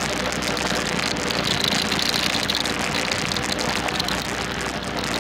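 Four-wheeler (ATV) engine running steadily while riding, with tyre noise from the gravel.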